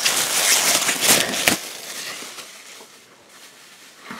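Clear plastic bag crinkling as it is handled and pulled away. The crinkling is loud for about the first second and a half, then dies down to faint rustling.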